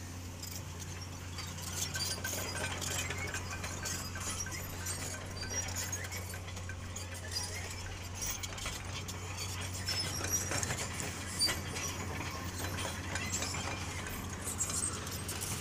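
Tata tipper truck's diesel engine running at a low, steady hum as the truck moves slowly over dirt and stones, with crackling and clicking from the ground under its tyres from about two seconds in.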